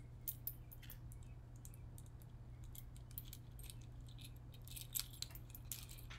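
Faint small clinks and ticks of a chunky metal chain necklace being handled and fastened at the neck, scattered irregularly with a few more together near the end, over a steady low hum.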